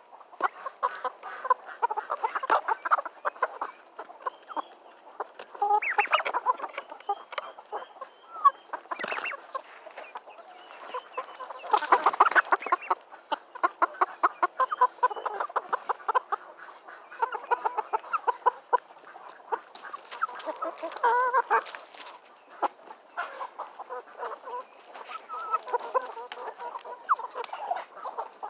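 Silkie chickens clucking continuously at close range as they peck at watermelon pieces, with many quick pecking taps mixed in and a few louder bursts of clucking.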